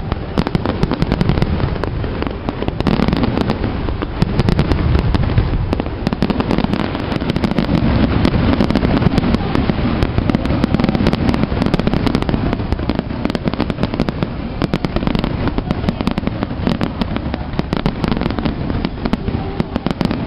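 A dense fireworks barrage: many aerial shells bursting in quick, overlapping succession, with deep booms under a constant rattle of sharp cracks.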